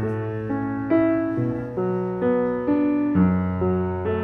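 Slow solo piano music: single melody notes about twice a second over held low notes, with the bass shifting lower about three seconds in.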